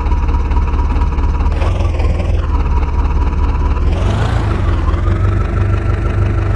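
Heavy diesel engine running steadily, with a constant whine over it that steps up in pitch about four seconds in.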